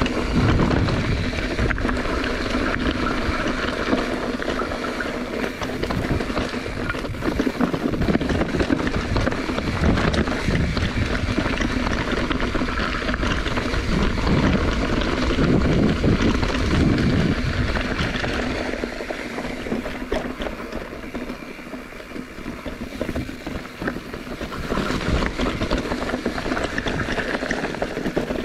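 Wind buffeting the camera microphone over the rumble of a bicycle rolling on a rough trail, a steady rushing noise that eases for a few seconds past the middle.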